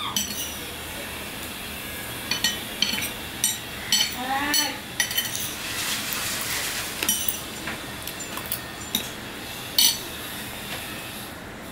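Eating from a ceramic plate: a series of short, sharp clinks and taps of a spoon and fingers against the plate, about a dozen spread out, the loudest near the end.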